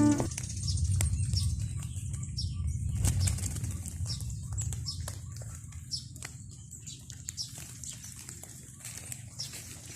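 Birds' wings flapping as they fly off on release, with short high chirps over a low rumble that fades away.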